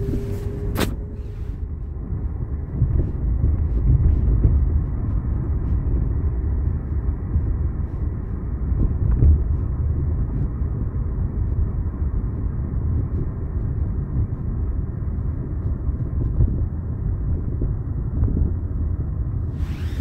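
Cabin noise of a 1998 Toyota Camry on the road: a loud, uneven low rumble. The owner blames it on its newly installed aftermarket struts, which he calls a ridiculous amount of noise.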